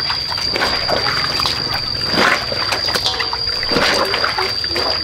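Laundry being washed by hand in a basin of water: irregular splashing and sloshing as the clothes are worked.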